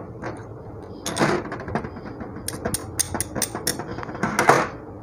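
Steel circlip being worked onto the splined main shaft of a Honda CG150-type 5-speed gearbox with circlip pliers, with gears shifting on the shaft: a string of sharp metallic clicks and clinks, the loudest about a second in and near the end.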